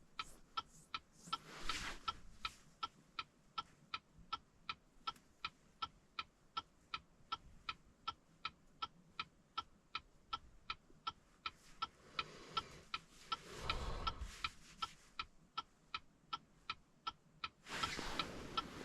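A car's dashboard ticker clicking steadily and fast, about two and a half ticks a second, while the ignition is on during key programming. Brief rustling handling noises come in twice, in the middle and near the end.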